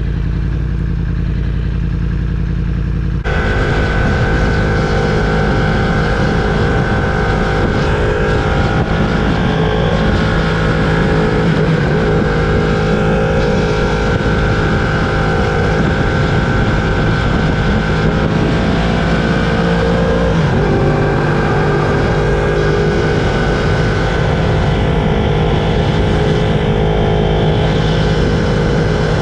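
Yamaha R1's crossplane inline-four engine running under way at fairly steady revs, its pitch rising and falling a little now and then. About three seconds in, the sound suddenly changes from muffled to clear and a little louder.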